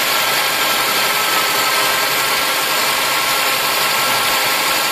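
Volkswagen Santana Quantum's four-cylinder AP engine idling steadily, heard up close at the Solex 3E carburettor. The brake-servo vacuum hose is plugged off so the idle speed can be set.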